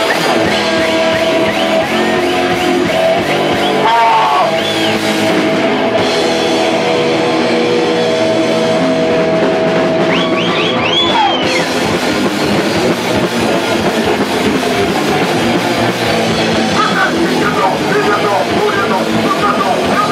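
Hardcore punk band playing live: distorted electric guitars, bass and drum kit, with long held notes and sliding pitch bends.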